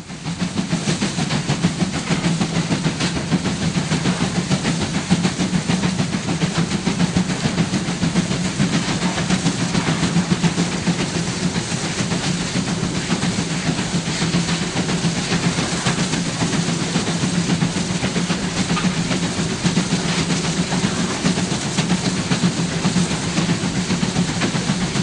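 Steam-hauled train running steadily, hauled by the 52-class freight steam locomotive 52 7596: a continuous rumble and hiss.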